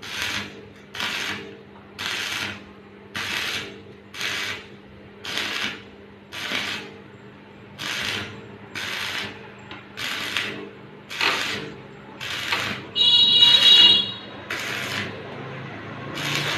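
Repeated scraping strokes, about two a second, each a short rasp. About thirteen seconds in there is a brief loud high-pitched tone.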